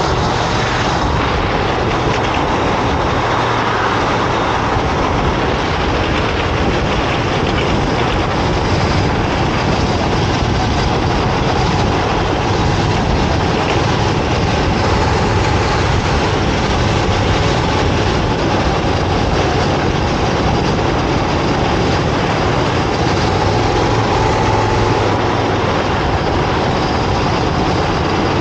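Go-kart engine running steadily at speed, with a dense rush of wind and tyre noise over it and no large swings in revs.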